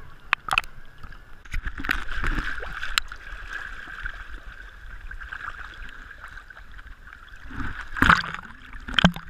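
Small sea waves sloshing and slapping against a camera held at the water's surface, with a few sharp splashes as waves hit it, the biggest about eight and nine seconds in.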